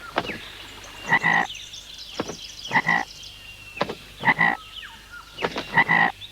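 Frog-like croaking calls, in pairs, about every second and a half, with sharp clicks between them.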